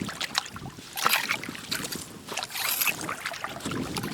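Shallow seawater splashing and sloshing in irregular bursts, as a person wades and works through it by hand.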